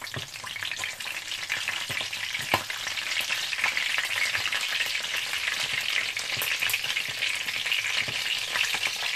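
Tofu blocks frying in hot oil in a pan, a steady sizzle and crackle as water from the tofu spatters in the oil. A few sharp clicks as the pieces are turned with chopsticks against the pan.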